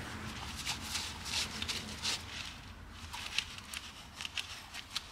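Terry-cloth towel rubbing and wiping inside an exhaust port of a removed cylinder head, a soft irregular scrubbing. The port is being dried to check whether brake cleaner poured into the combustion chamber seeps past a leaking exhaust valve.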